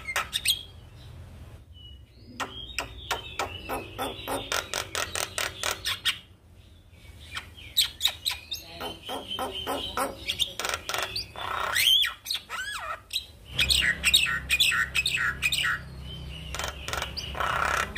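Javan myna singing: fast runs of sharp clicking notes and chatter in bursts, with short pauses between phrases and a few gliding whistled notes.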